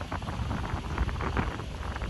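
Wind buffeting the microphone in a gusty, uneven rumble, over the wash and splash of sea water against the rocks.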